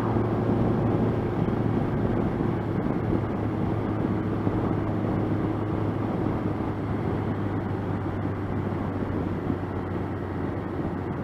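1985 Honda CB700SC Nighthawk's inline-four engine running at a steady cruise, with a steady hum and wind and road noise on the rider's microphone.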